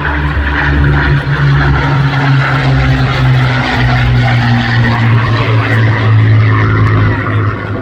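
Formation of Spitfire and Hurricane fighters flying over, their piston engines making a loud, steady drone. The engine note drops slightly in pitch around the middle.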